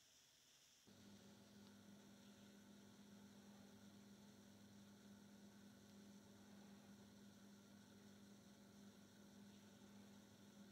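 Near silence with a faint, steady electrical hum that starts about a second in.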